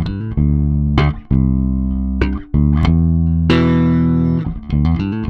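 Electric bass guitar played through a Jam Pedals Dyna-ssor bass compressor pedal: plucked notes with sharp attacks, each held with long, even sustain.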